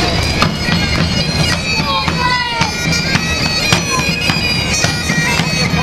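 Highland bagpipes playing a march tune over a steady drone, with side drums beating along.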